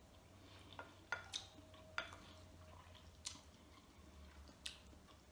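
Faint mouth sounds of a person chewing a soft mouthful of rice and stewed vegetables, with a handful of short, sharp clicks scattered through it.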